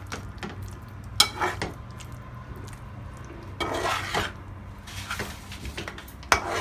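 A spatula stirring and scraping in a cooking pan with a clink, in three short bouts about a second in, around four seconds and near the end, mixing the eggs into the masala. A steady low hum runs underneath.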